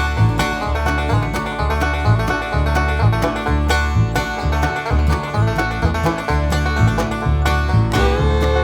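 Background music in a bluegrass or country style, with plucked banjo and guitar over a steady beat and bass line.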